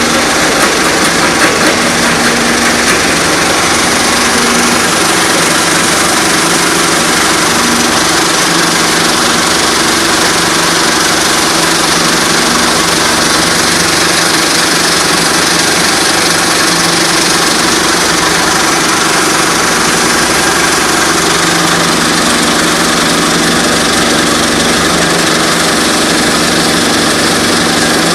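Stone crusher machine running, a loud, steady mechanical din with a constant low hum.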